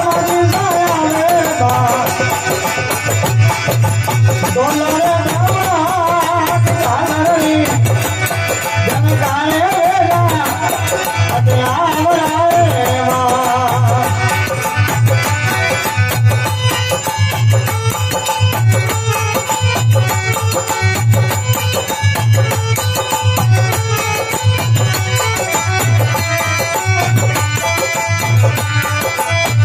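Rajasthani folk devotional song (bhajan): a voice sings over a steady drum beat, and about halfway through the singing gives way to an instrumental passage with the beat carrying on.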